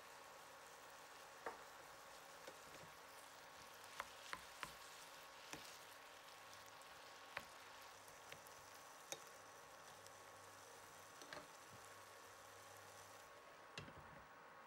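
Near silence: a faint steady hiss with scattered soft clicks, about a dozen, at uneven intervals.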